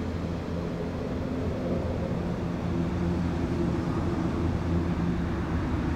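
A motor running at a steady speed: an even, low hum that does not change.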